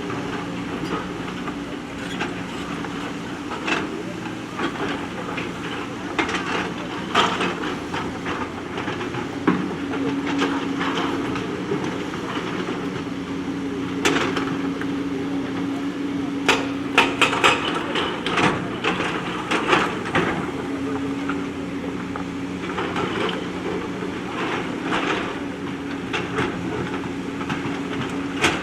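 Backhoe loader's diesel engine running steadily while its bucket clanks and knocks against stones, with a quick run of knocks past the middle.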